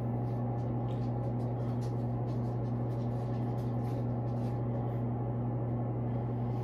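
Steady low machine hum with a faint pulsing tone above it, like a bathroom fan or appliance running.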